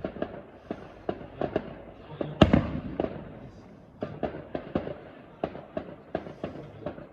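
Fireworks going off in rapid succession: sharp bangs and pops, several a second, with one big bang about two and a half seconds in followed by crackling.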